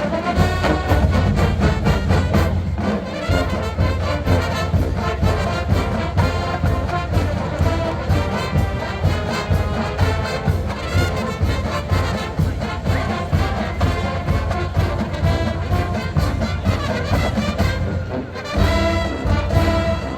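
A college marching band playing a brass-led piece at full volume over a steady drum beat. The music briefly thins out near the end, then comes back in loud.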